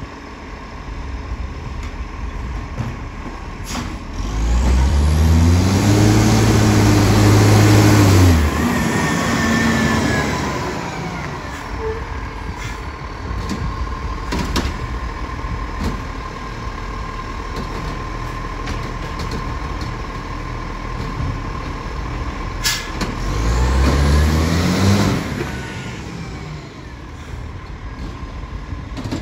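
Side-loader garbage truck's diesel engine accelerating, rising in pitch for a few seconds from about four seconds in, then dropping sharply at a gear change; it settles to a steadier run, then accelerates again briefly a little over twenty seconds in before easing off. A steady whine runs underneath.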